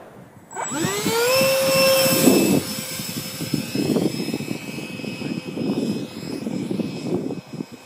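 Radio-controlled SpaceShipOne model plane's motor whining up sharply in pitch as it is throttled up for a hand launch. It holds a steady high whine for about a second, then drops away and fades under wind buffeting the microphone.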